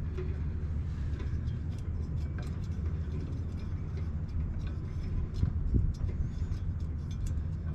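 Steady low rumble with scattered light clicks and knocks of parts being handled, the strongest knock about five and a half seconds in.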